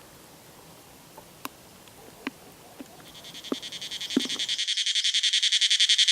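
Cicada call fading in about three seconds in: a high, rapidly pulsing buzz that keeps getting louder. Before it, only a few faint clicks over quiet room noise.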